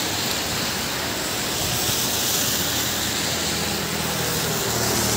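Cars driving along a flooded road, their tyres hissing steadily through standing water, with a vehicle's engine coming up faintly in the second half.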